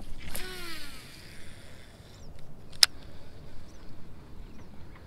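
A cast with a baitcasting reel: the spool whirs as the line pays out, its pitch falling as the spool slows, trailing off as a hiss. A single sharp click comes near three seconds in, followed by a few faint ticks.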